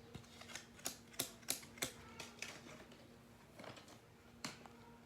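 Small plastic doll accessories being handled: a run of light, sharp clicks and taps, several in quick succession over the first two seconds or so, then a few more spaced out.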